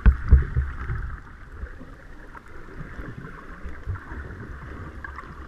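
Water heard through an underwater camera housing while snorkelling: a few loud, muffled low thumps in the first half second, then steady hiss and sloshing.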